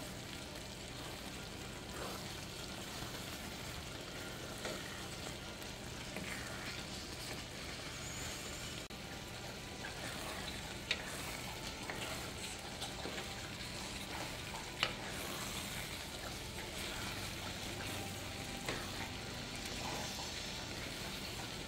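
Spanish rice with tomato, corn and peas sizzling faintly and steadily in a skillet as it cooks, with a spoon stirring through it and a couple of sharp clicks of the spoon against the pan.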